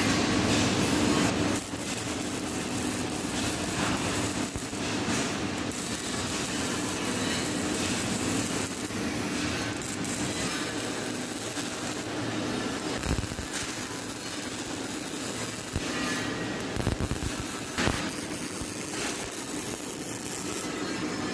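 CO2-shielded MIG welding arc crackling steadily, with scattered sharper pops.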